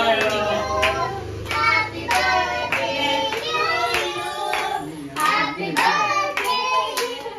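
A small group of adults and a child singing together, with hands clapping along.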